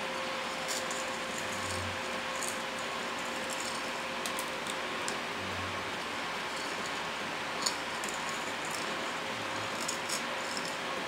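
Induction cooktop running under a pot: a steady fan whir with a faint whine, and a low hum that swells briefly every three to four seconds as the hob cycles its power. A few faint ticks.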